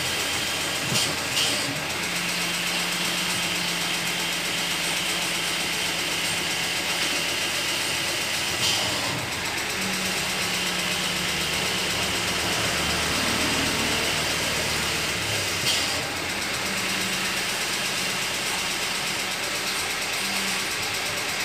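Toyota Corolla 2E four-cylinder petrol engine idling steadily, driving its newly fitted power steering pump on the first test run after a manual-to-power steering conversion. A few light clicks sound over the steady running.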